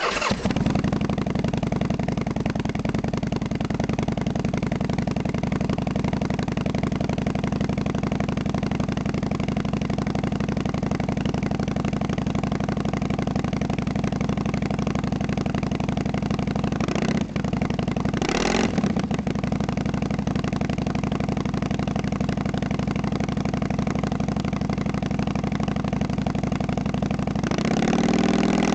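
Harley-Davidson Sportster XL883's 883 cc air-cooled V-twin starts up and idles through Vance & Hines pipes fitted with Kijima silencer inserts. Two quick throttle blips come a little past halfway, and a longer rev comes near the end.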